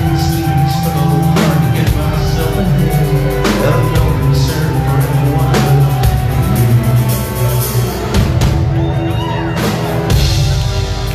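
A rock band playing live and loud: electric bass, electric guitar and a drum kit, with regular drum hits through the music.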